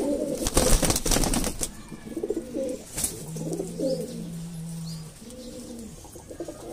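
Pigeons flapping their wings in a rapid flurry about half a second in, lasting about a second, with a shorter flap about three seconds in; domestic pigeons cooing throughout.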